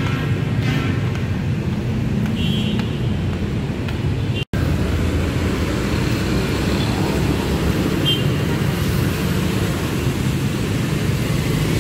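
Busy city road traffic: a steady rumble of cars and motorbikes passing, which drops out for an instant about four and a half seconds in.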